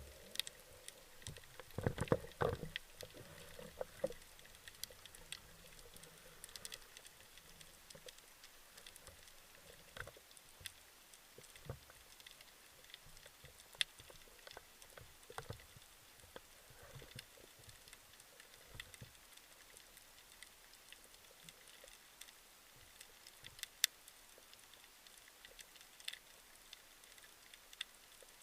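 Underwater ambience: faint, irregular clicks and crackles over a low hiss, with a cluster of louder knocks about two seconds in.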